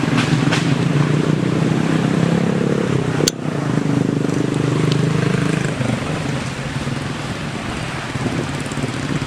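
A vehicle engine running steadily, a low drone that fades somewhat about six seconds in, with one sharp click a little after three seconds.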